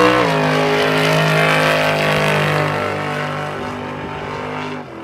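Drag-racing car's engine at full throttle pulling away down the strip. Its pitch drops about a quarter-second in as it shifts up, then it fades steadily as the car moves off, cutting off sharply near the end.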